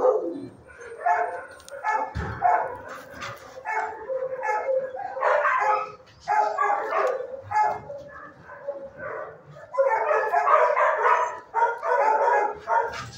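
Shelter dogs barking repeatedly in clusters of short barks. A low thump comes about two seconds in.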